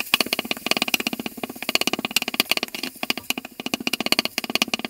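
Plastic meat masher striking and scraping the bottom of a stainless steel pan in rapid, even strokes, several a second, as raw beef mince is broken up.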